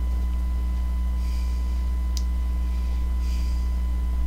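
Steady electrical mains hum with a faint high steady tone above it, and a single sharp click about two seconds in.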